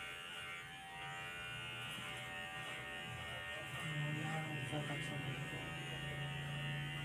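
Electric hair clipper buzzing steadily as it cuts short hair on the side and back of a head, getting louder about four seconds in as the blade works against the head.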